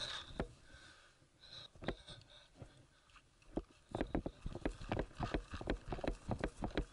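Footsteps running over grass, starting about halfway in, fast and regular at about three to four steps a second.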